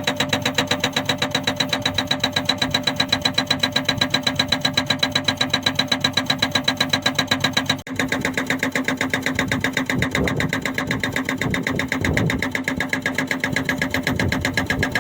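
Hydraulic breaker on a JCB backhoe loader hammering, a rapid, even clatter of blows at about ten a second over the machine's engine, with a brief break about eight seconds in.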